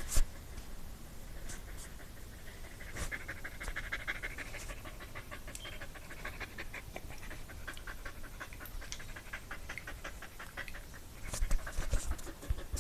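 Dog panting rapidly in a quick, even rhythm of short huffs that sounds like a chuffing steam train, growing louder near the end.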